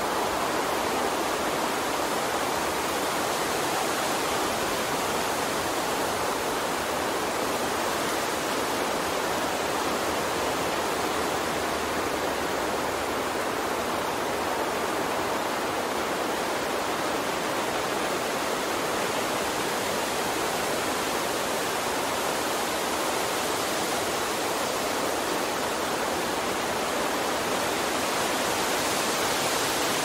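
Steady, even rushing noise with no distinct events or tones.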